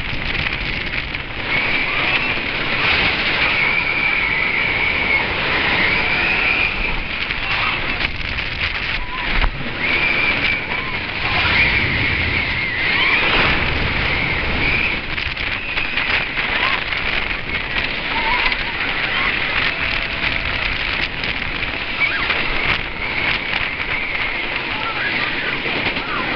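Wooden roller coaster ride heard from aboard the train: a constant loud rush of wind and track rumble, with riders screaming in long, wavering wails over it.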